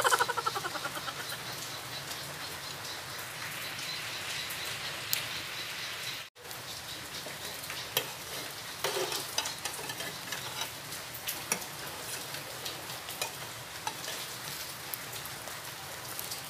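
Egg-battered bread frying in a nonstick grill pan: a steady sizzle full of small crackles and pops, with occasional clicks of a metal spoon and spatula against the pan. The sound cuts out for a moment about six seconds in.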